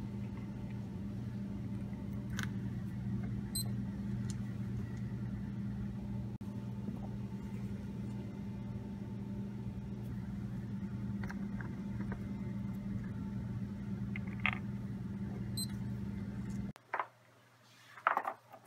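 Steady low mechanical hum of laboratory equipment, with a few faint clicks. The hum cuts off suddenly near the end, followed by a few sharp clicks and knocks.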